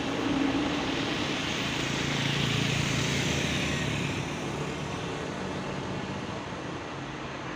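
Large coach bus passing close by on the road: engine hum and tyre noise, loudest about two to three seconds in, then slowly fading as it draws away.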